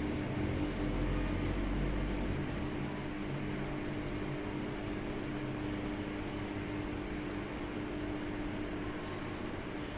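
Steady mechanical hum holding one pitch over an even hiss, with a deeper low rumble that swells for about a second and a half near the start.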